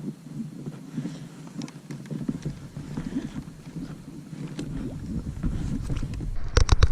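Knocking and rustling on a kayak, with water noise and wind on the microphone. A few sharper, louder knocks come near the end.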